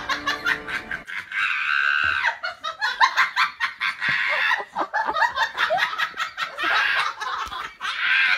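A person laughing hard in rapid, high-pitched fits, with short breaks between them.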